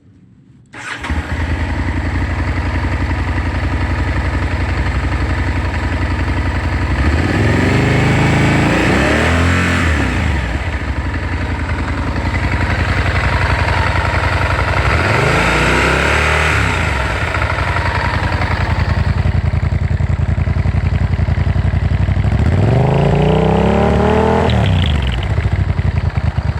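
Honda VTR1000F's 90-degree V-twin engine starting about a second in, then idling, revved three times with the pitch rising and falling each time. This is after a fix aimed at an abnormal engine noise, which the owner says is not fully cured.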